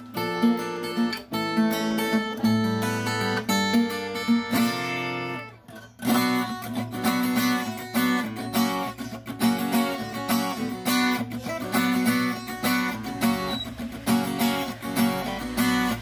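Device acoustic guitar with a spruce top, sapele back and sides and .012-gauge strings, played in ringing chords. About five and a half seconds in it breaks off briefly, then is strummed in a steady rhythm.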